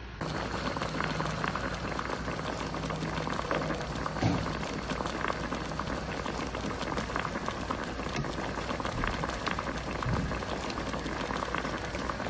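Shrimp broth boiling hard in a frying pan: a steady bubbling hiss full of small pops.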